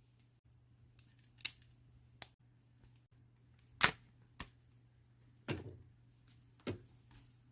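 Plastic LEGO pieces clicking and clacking as they are handled and pressed together: about six sharp, separate clicks at uneven intervals, the loudest a little before four seconds in.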